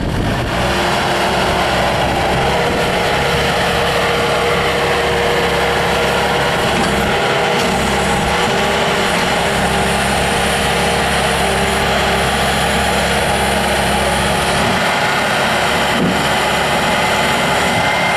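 Bobcat S300 skid steer loader's diesel engine running steadily at working throttle, with a steady whine held over it.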